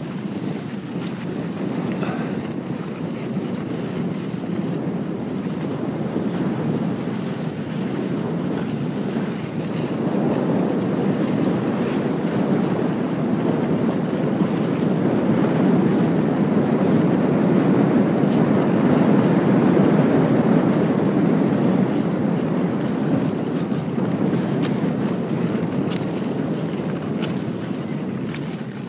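Muffled rush of wind against a ski helmet during a downhill run, heard from a phone tucked under the helmet. It grows louder about a third of the way in and eases near the end.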